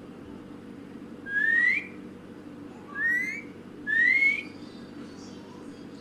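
Rose-ringed parakeet whistling: three short whistles, each sliding upward in pitch, the first about a second in and the other two close together a couple of seconds later.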